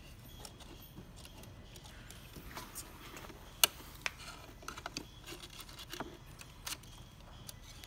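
Needle-nose pliers and thin wires being handled inside a plastic instrument housing: faint scattered clicks and rustling, with one sharp click about three and a half seconds in.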